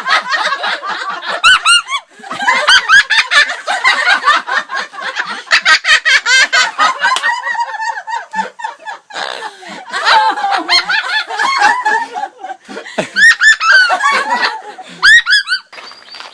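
A parrot giving rapid laugh-like chattering calls, with sharp whistled chirps about a second in and again near the end.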